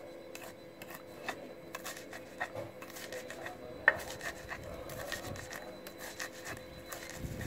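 Stone pestle grinding and crushing peanuts in a stone mortar (cobek). Rough scraping and rasping, broken by irregular knocks of stone on stone, with one sharp knock about halfway through. This is the peanuts being ground down for the karedok dressing.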